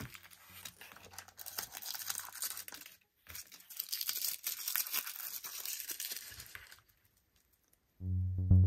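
Small plastic wrapper being crinkled and torn open by hand, in two stretches of rapid crackling with a short break between. Background music comes in near the end.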